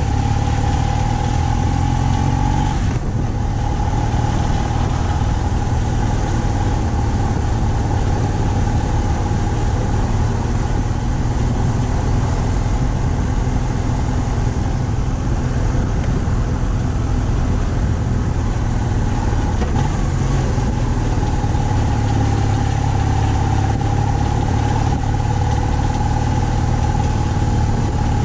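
BMW R 1200 C motorcycle's boxer-twin engine running at a steady cruise, mixed with steady wind rush and a steady mid-pitched tone.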